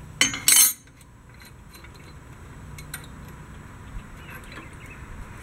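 A steel combination wrench clinking against square-headed bolts and the steel hitch plate: two loud metal clanks in quick succession just after the start, then a few faint ticks as the bolt is worked.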